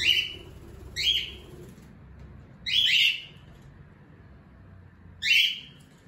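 Cockatiel giving short, rising whistled contact calls: one at the start, one about a second in, a quick double call around three seconds in, and a last one near the end.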